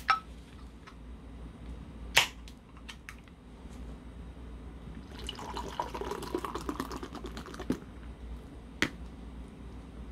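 A can of Pilsner Urquell beer cracked open with a sharp click, a knock about two seconds in, then the beer poured into a glass mug with fizzing and crackling of the foam for about two and a half seconds, and a single knock near the end.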